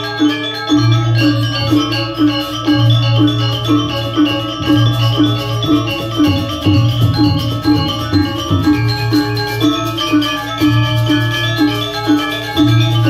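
Balinese gamelan ensemble playing a tabuh: bronze metallophones ring in a fast, even pulse over a low, sustained tone.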